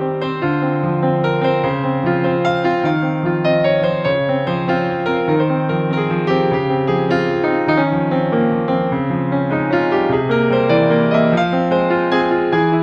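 Background music played on piano or electric piano: a steady run of notes with a low bass line underneath.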